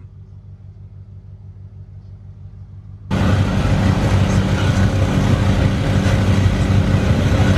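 Car engine idling low and steady; about three seconds in, a loud rough rushing noise cuts in suddenly and carries on, with the low engine tone still under it.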